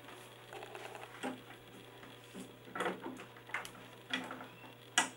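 Scattered clicks and knocks of hard plastic parts as the head of a photodynamic-therapy LED lamp is handled and its filter part is worked into place, over a steady low hum. The loudest knock comes near the end.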